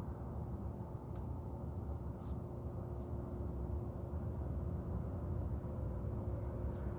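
Steady low rumble of machinery at a metal-casting plant, with a steady hum tone running through it, which the uploader puts down to failing equipment. A few faint ticks sound over it.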